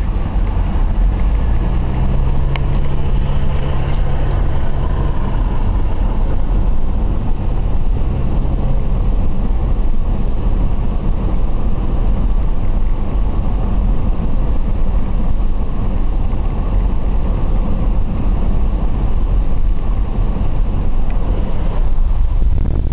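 Car driving at speed, heard from inside the cabin: a steady low rumble of engine, tyres and wind, with a steady engine hum standing out for the first several seconds.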